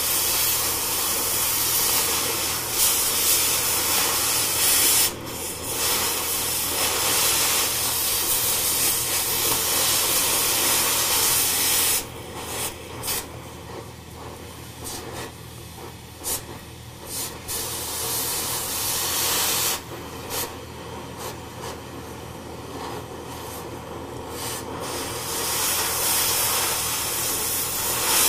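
Hand-held plasma cutter hissing steadily as its arc cuts through the steel of an old hydraulic-cylinder rod-end pin support. The hiss eases about twelve seconds in and turns patchy and crackly for a stretch, then swells back near the end.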